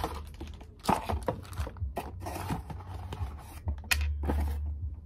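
Cardboard box and its packing being handled: rustling and scraping, with sharp knocks about a second in and again near four seconds.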